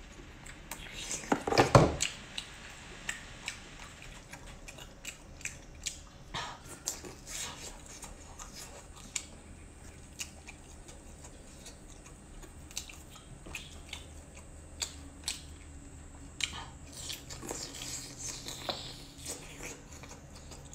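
Close-miked eating of soft seafood: a loud, wet bite about a second and a half in, then chewing with frequent small wet mouth clicks and smacks.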